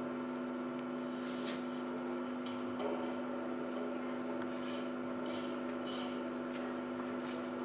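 Steady electrical hum made of several held tones, with faint scattered clicks and rustles.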